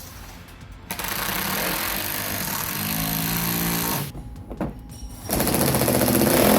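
Power driver running fasteners in with two runs: a run of about three seconds starting about a second in, with a rising pitched hum in it, then a shorter, louder run near the end.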